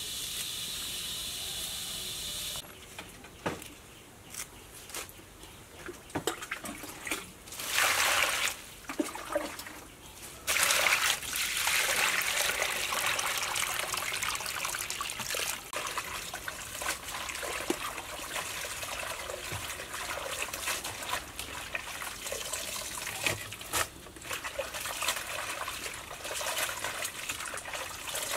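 Water splashing in an aluminium basin as leafy greens are washed by hand. Scattered splashes come first; then, from about ten seconds in, a steady stream of water pours over the leaves. A steady hiss fills the first couple of seconds.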